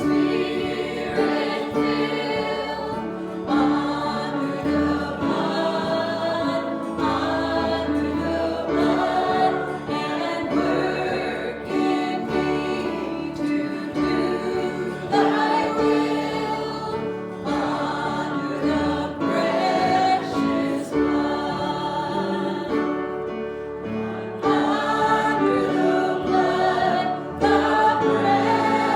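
Church singers, a group of voices, singing a gospel hymn together in held notes over a low bass line.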